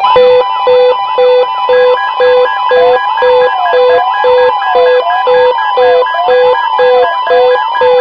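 Several weather alert radios sounding their alarms at once: a steady tone, the weather radio warning alarm tone, under a beeping alarm at about two and a half beeps a second. From about three seconds in, a slower rising-and-falling warble joins them.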